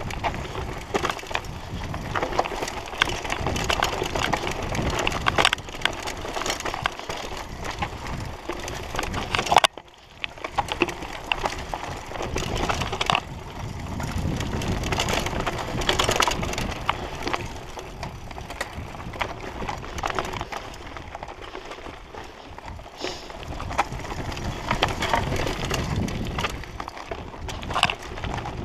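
Mountain bike rattling and clattering over a rough, stony dirt trail: tyres crunching on loose gravel and the bike and camera jolting with many small knocks. The noise drops away briefly about ten seconds in, then resumes.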